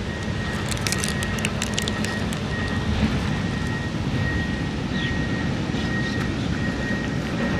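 Steady low background rumble with a thin, high, steady whine held through it, and a cluster of sharp clicks about one to two seconds in.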